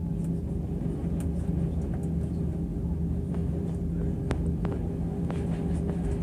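Inside the cabin of an Airbus A320 rolling on the ground: a steady engine rumble with a low hum. Short sharp knocks come more often from about four seconds in, as the wheels run over pavement joints.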